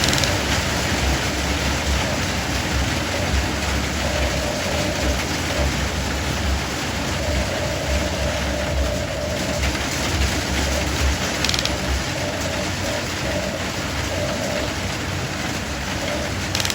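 Radio-controlled excavator working: a steady hiss with a thin electric-motor whine that starts and stops several times.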